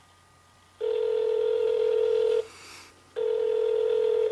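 Telephone ringback tone, the ringing a caller hears on the line while a call is going through: a steady single-pitched tone that starts about a second in, breaks off briefly, and comes back.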